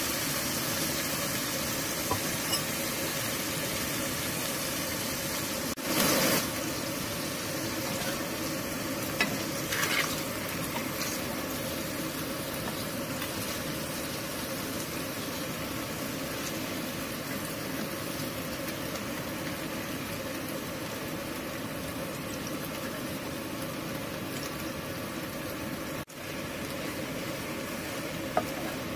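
Beaten eggs and tofu sizzling steadily in hot oil in a frying pan, with a couple of brief louder scrapes or knocks, about six and ten seconds in.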